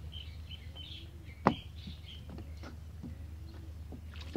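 Scrap wood being set down in a muddy fiberglass boat: one sharp knock about a second and a half in, then a few lighter knocks and taps. A bird chirps repeatedly in the background during the first part.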